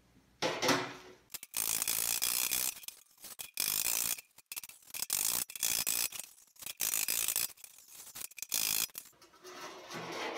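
Palm-held air sander run in several short bursts on a bare sheet-steel fender panel, smoothing the metal: a hissing scratch with a steady high whine, stopping and starting a few times.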